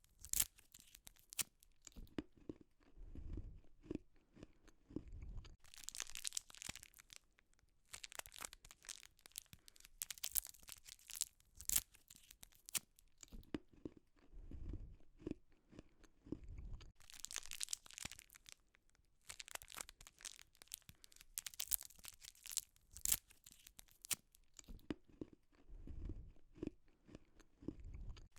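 Plastic candy wrappers crinkling and tearing open, alternating with bouts of crunching and chewing on the candy, several times over.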